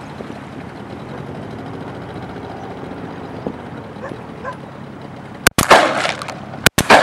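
Shotgun fired twice, about a second apart near the end, each blast very loud and sharp, over the steady low rumble of the boat on the water.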